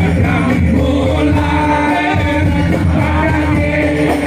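Sholawat devotional song: a male lead voice singing a melismatic line over continuous musical accompaniment.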